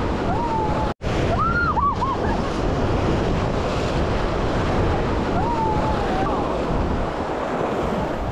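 Rushing river water and wind buffeting the microphone, a steady noisy wash that cuts out for an instant about a second in. A few brief high-pitched calls rise and fall over it.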